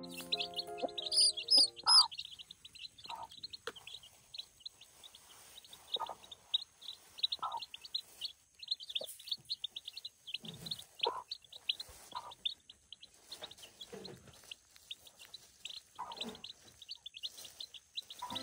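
Small birds chirping in a dense run of short, rapid high calls, with a few louder, higher calls about one to two seconds in and scattered lower sounds throughout.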